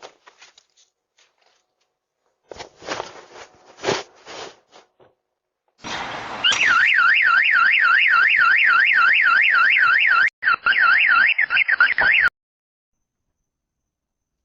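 Car alarm siren going off: a loud, fast warbling tone sweeping up and down about four times a second. It cuts out briefly and then stops suddenly. A few knocks and thuds come before it.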